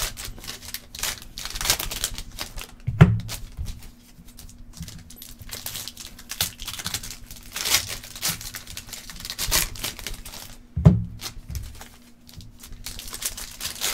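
Foil trading-card pack wrapper being torn open and crinkled in the hands, a run of short crackling rustles, with two dull thumps a few seconds apart.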